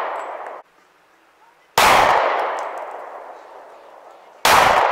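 Springfield XD semi-automatic pistol fired twice, about two and a half seconds apart, each shot followed by a long echo that fades over about two seconds. It opens on the fading echo of an earlier shot.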